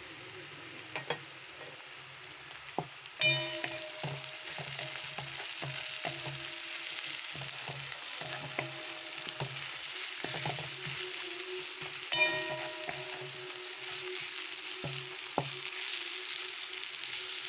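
Onions and ground spices sizzling in hot oil in a metal wok while a wooden spatula stirs and scrapes them: the masala being fried. The sizzle grows loud about three seconds in, with frequent clicks and scrapes of the spatula against the pan.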